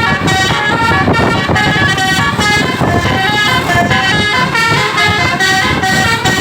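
Bus 'telolet basuri' musical air horn playing a quick tune of short notes that step up and down in pitch, over a steady low rumble.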